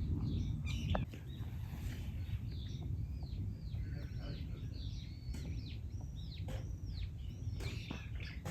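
Garden birds chirping: a run of repeated high, arching chirps, about two a second, through the middle, over a steady low rumble of outdoor background noise.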